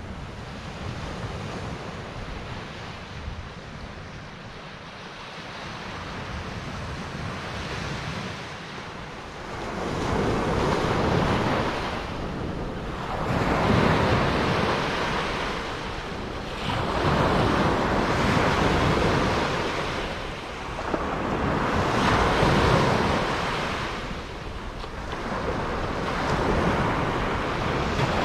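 Small Baltic Sea waves washing up on a sandy beach. From about ten seconds in, the surf swells and falls back every three to four seconds, with wind rumbling on the microphone underneath.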